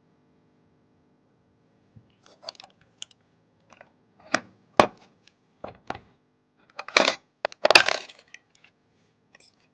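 Hands handling PC parts and their packaging: a string of sharp clicks and crinkling rustles. The loudest are a sharp click about five seconds in and a longer crinkle near the end.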